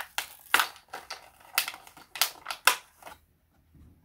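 Small needle storage tubes clicking and clattering against each other as they are handled, an irregular run of sharp clicks that stops about three seconds in.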